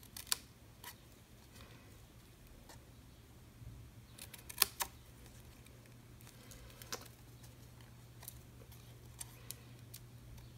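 Small scissors snipping through thin white cardstock, a few short, sharp snips spaced out, the loudest about halfway through, as a V-notch is cut into the end of a paper banner strip.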